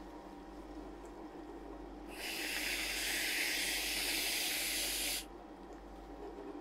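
Aerosol can of whipped cream spraying a swirl onto ice cream: a steady hiss lasting about three seconds, starting about two seconds in and cutting off sharply.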